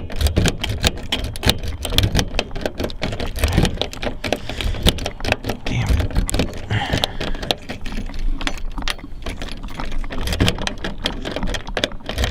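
Car key being jiggled back and forth in a jammed door lock of a 2005 Honda Civic, with pencil graphite packed into the cylinder; the key clicks and scrapes in the lock while the keys on the ring jangle, in a rapid, unbroken run of small metallic clicks and rattles.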